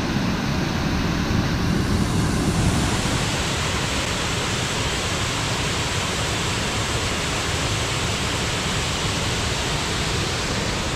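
Waterfall: a wide cascade of river water rushing steadily over rock ledges, a continuous even roar with no breaks.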